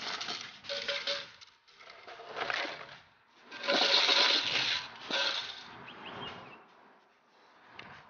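Scuffling and rustling as a Dutch Shepherd puppy grips and tugs on a handler's bite sleeve. It comes in irregular bursts, the loudest about four seconds in.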